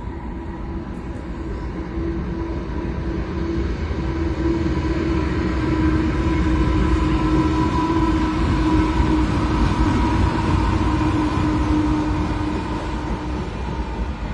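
NR class diesel-electric locomotive hauling a passenger train across a steel girder rail bridge: a steady engine drone over a low rumble of wheels on the rails, growing louder to a peak about halfway through and easing as the passenger cars follow.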